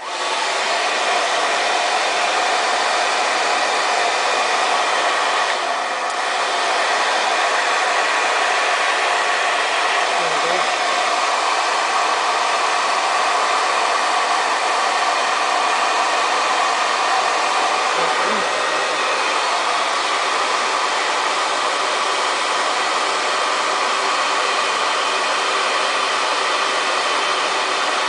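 Handheld blow dryer running steadily on its hottest setting, a constant whooshing airflow with a motor whine, with a brief slight dip about six seconds in.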